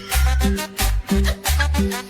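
Upbeat music with a steady rhythm of short bass notes and percussion.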